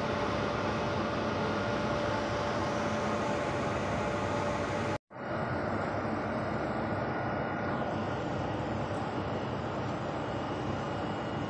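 Steady mechanical drone of a running belt conveyor plant, with a couple of constant hums in it. It cuts out completely for a split second about five seconds in, then carries on unchanged.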